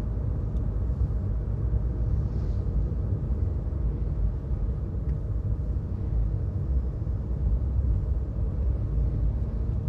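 Steady low rumble of a car driving, tyre and engine noise heard from inside the cabin.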